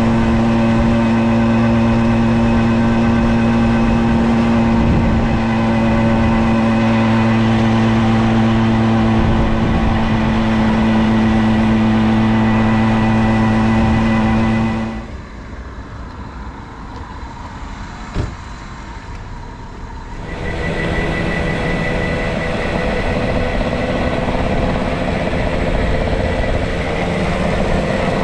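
Tomos A3 moped's small 49 cc two-stroke engine running steadily under way. About fifteen seconds in it drops to a much quieter stretch for about five seconds, with one short click. The engine sound then returns at a different pitch and rises near the end as the moped speeds up.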